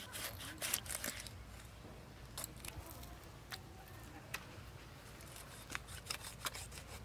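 A steel cleaver pressed and worked through the body of a stingray on a wooden block, slicing flesh and soft cartilage. It makes short, faint cutting clicks at irregular intervals, several in the first second and a scattering after.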